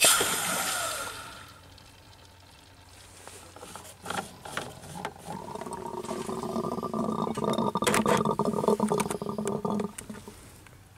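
Cap of a pressurised coolant expansion tank unscrewed, releasing a sharp hiss of built-up pressure that fades over about a second and a half. The pressure is a sign of exhaust gas forced into the cooling system by a failing head gasket. From about five seconds in a steady pitched rushing sound with a few clicks runs for some five seconds and stops near the end.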